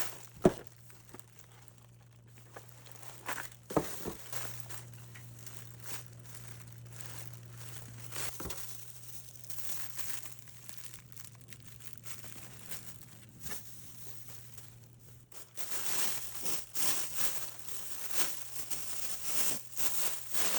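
A few sharp knocks, then a low steady hum through the middle. From about 15 seconds in comes a dense crinkling of packaging being handled.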